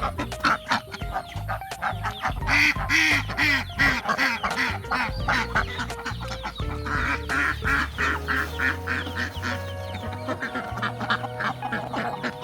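Ducks quacking in rapid runs, busiest in two bouts, over background music.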